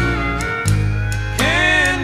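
Country music with steel guitar sliding between notes over a steady drum beat.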